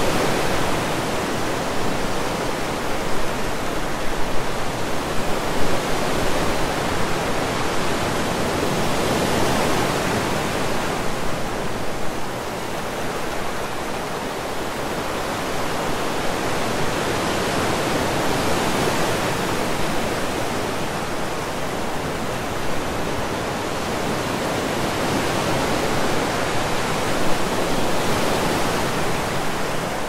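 Ocean surf breaking on a sandy beach: a steady rushing wash of waves that swells and eases irregularly every several seconds.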